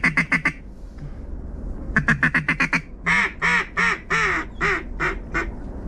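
Mallard hen duck call blown by a hunter to work passing ducks: a quick run of short quacks, a second quick run, then slower drawn-out quacks that grow fainter toward the end.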